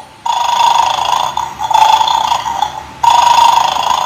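Battery-operated toy dog from the Bad Dog game playing a buzzy electronic sound effect through its small speaker, in two long stretches, the second starting sharply about three seconds in.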